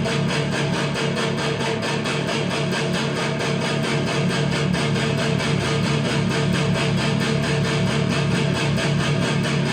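Electric guitar played through an EVH 5150 Overdrive pedal, giving a distorted overdrive tone, with a steady beat behind it.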